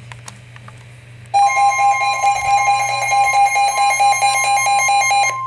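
PRO-107 radio sounding a weather alert for a Special Marine Warning. About a second and a half in, a loud electronic alarm starts, pulsing about four times a second over a steady warning tone. The pulsing cuts off near the end while the steady tone carries on.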